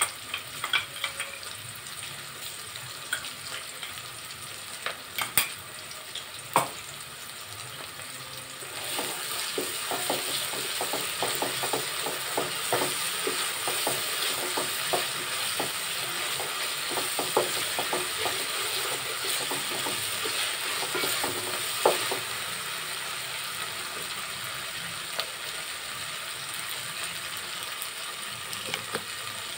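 Onions, green chillies and whole spices with ginger paste sizzling in oil and ghee in a metal pot, with scattered spoon clicks early on. The sizzle grows louder about nine seconds in, while a wooden spatula stirs and scrapes the pot for about the next dozen seconds.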